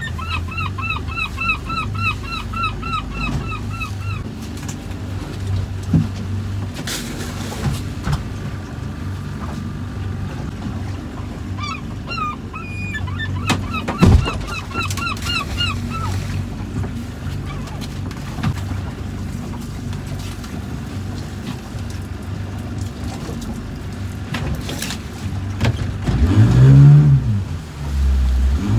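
Boat outboard motor running steadily in the wind while a gull gives quick series of short, repeated calls, first in the opening four seconds and again around the middle. Near the end the engine revs up and back down.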